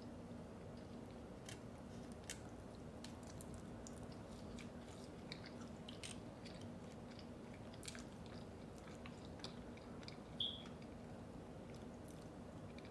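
A person chewing and biting fast food close to the microphone, with scattered small crunches and clicks over a steady low background hum. A brief high squeak sounds about ten and a half seconds in.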